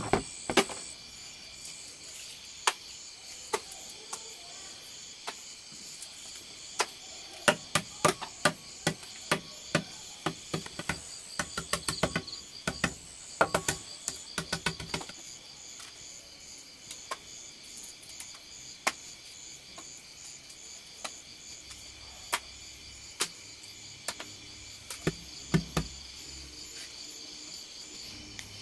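Steady high chirring of insects, with irregular sharp knocks and taps from food preparation, thickest through the middle stretch and again briefly near the end.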